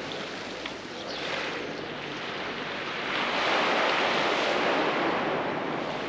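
Seaside noise of small waves washing onto the beach, mixed with wind on the microphone. It grows louder about three seconds in.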